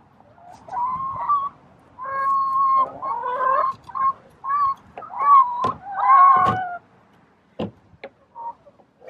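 Laying hens calling, a string of drawn-out clucking calls one after another, followed near the end by a couple of sharp clicks.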